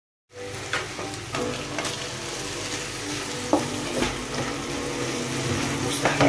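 Chopped onions sizzling in hot oil in a wok, with a spatula stirring and scraping against the pan, knocking on it several times.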